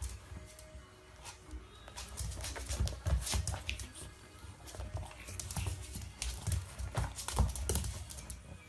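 Pug puppy tussling with a canvas sneaker on a wooden floor: irregular clicks, scuffs and light knocks of the shoe and its paws on the boards.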